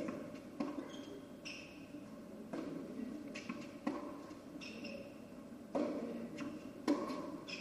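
Tennis rally on a hard court: racket strikes on the ball about once a second, with tennis shoes squeaking on the court surface between shots.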